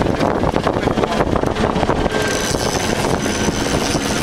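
Steady rumble of a boat's motor and wind buffeting the microphone on open water, with a faint high whine joining about halfway through.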